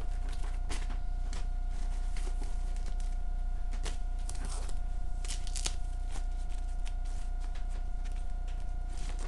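Rustling and crinkling of a thin white protective wrapping sheet as it is handled and pulled free, in short irregular crackles that bunch up around the middle. A steady hum runs underneath.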